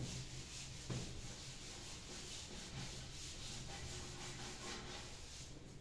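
Chalkboard being wiped clean: a faint, steady rubbing with a light knock about a second in.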